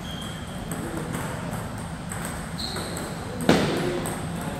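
Table tennis rally: the celluloid-type plastic ball clicking irregularly off paddles and table, then one loud, sharp knock with a short ringing tail about three and a half seconds in, as the point ends.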